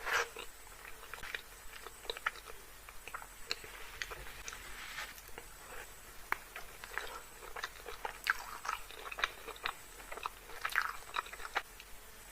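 Close-miked chewing and mouth sounds of someone eating creamy Alfredo pasta: irregular wet smacks and small clicks, a few every second.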